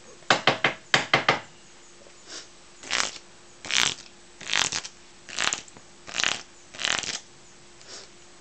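A deck of playing cards shuffled in the hands: a quick run of sharp snaps in the first second or so, then six short shuffling bursts a little under a second apart.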